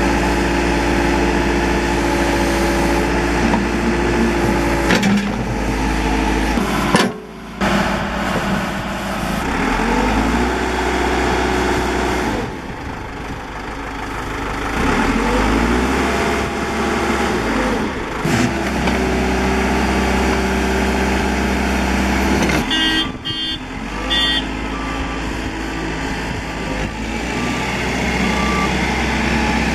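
Case 590 Super M loader backhoe's diesel engine running under working load, its note rising and falling repeatedly. Late on, a backup alarm beeps steadily for several seconds.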